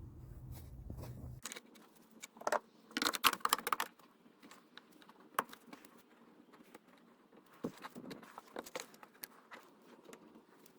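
A low hum cuts off about a second and a half in. Then come a burst of metallic clinks and jangling from hand tools being handled, and scattered single clicks.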